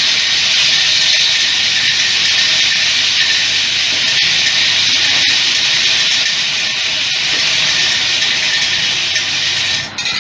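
Automatic transformer soldering machine running with a steady, loud hiss and a few faint clicks.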